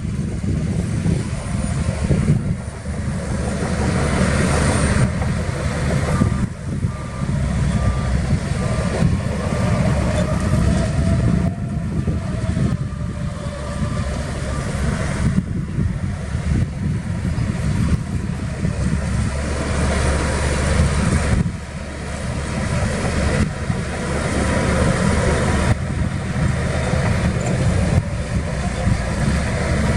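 Heavy diesel engines of earthmoving machines running under load, with a rumble that rises and falls. A reversing alarm beeps about once a second for several seconds in the middle.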